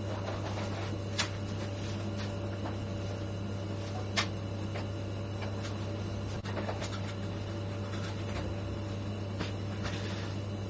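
A steady low machine hum with a thin steady whine above it, and a few sharp clicks and taps, two of them louder.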